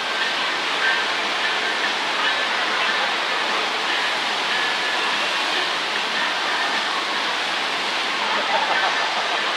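A FlowRider standing-wave surf machine's pumped sheet of water rushing up the sloped ride surface and breaking into a constant white-water wave, a steady, unbroken roar of water.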